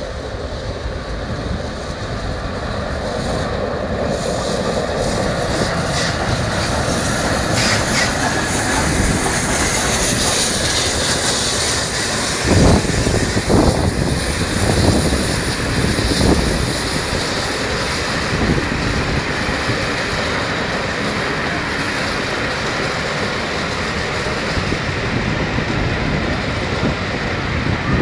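Steam-hauled passenger train, led by the steam locomotives Tornado (an LNER A1 Pacific) and King Edward I (a GWR King class), passing close by: a steady rumble of the engines and coaches on the rails, with a few louder wheel knocks about halfway through.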